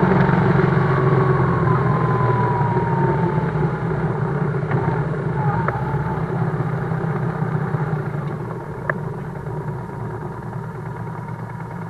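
BMW GS motorcycle engine running steadily at low revs, slowly getting quieter, with a faint whine falling in pitch in the first few seconds.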